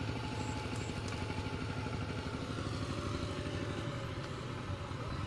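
A small engine idling steadily, a low even pulse that holds throughout.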